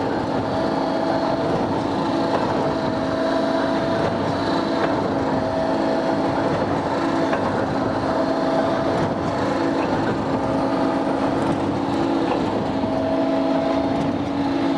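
Claas 3300 big square baler running empty at tickover: a steady mechanical hum from its gear-driven mechanism and knotter fans, with a higher tone that swells and fades every couple of seconds.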